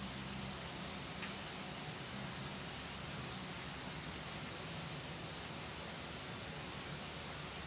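Steady background hiss with a faint low hum, and a single faint click about a second in.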